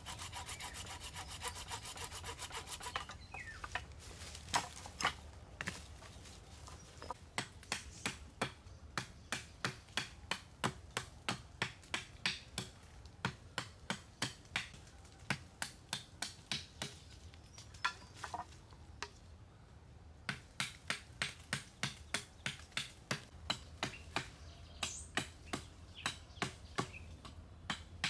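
Hand tool working wood: fast, even rasping strokes for about three seconds, then sharp strokes at about two a second, pausing briefly past halfway before going on.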